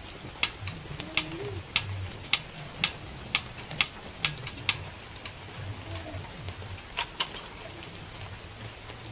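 Metal spoon clinking against a stainless steel bowl while eating, sharp clicks about twice a second that thin out after the first half, with two more near the end. Steady rain hisses on the tent behind.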